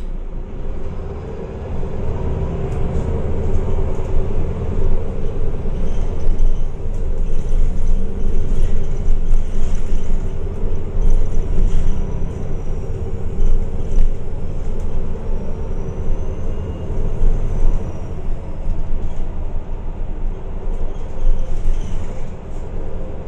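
MAN A22 city bus running, with steady diesel engine drone and road rumble that builds about two seconds in. A faint high whine rises and falls twice in the second half.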